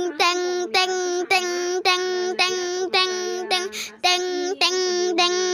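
Railroad crossing warning alarm: one note repeated about twice a second, each note held at a steady pitch.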